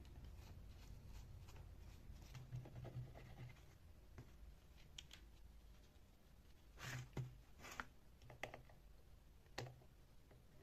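Faint scraping and a handful of light clicks and taps from parts of an old electric drill being handled and worked on, with a cluster of sharper clicks in the second half.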